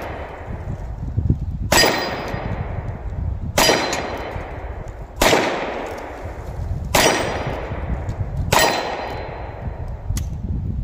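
Cimarron Frontier .45 Colt single-action revolver with a 7.5-inch barrel, fired five times at a steady pace about a second and a half to two seconds apart, each shot trailing off in a long echo. A metallic ring follows the shots: bullets striking a steel silhouette target.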